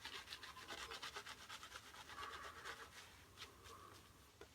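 Synthetic shaving brush scrubbing shaving cream on the face, a faint scratchy brushing of several quick strokes a second that eases off near the end. The lather is still building and on the dry side.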